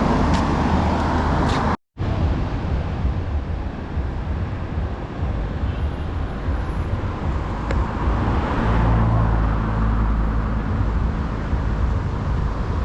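Steady road traffic noise from passing cars. A vehicle engine runs close by for a couple of seconds about nine seconds in. The sound cuts out completely for a moment near two seconds in.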